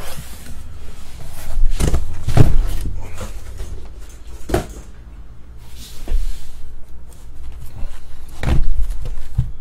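Shrink-wrapped trading-card boxes and a cardboard shipping case being handled, with several dull knocks as the boxes are set down and pushed together on a table and rustling between them.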